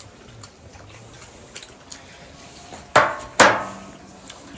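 Two sharp knocks about half a second apart near the end, each ringing briefly, after a few light clicks of chopsticks and tableware.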